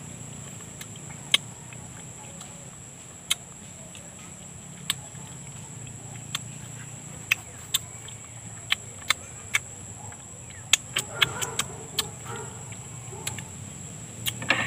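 Close-up mouth sounds of eating ripe mango straight from the skin: irregular wet smacks and sucking clicks, about fifteen of them, coming thicker in the second half.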